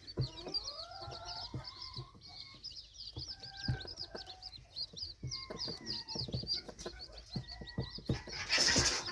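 Red junglefowl chicks peeping rapidly and continuously in short high chirps, with a few lower, drawn-out clucking calls mixed in. A louder burst of rustling noise comes near the end.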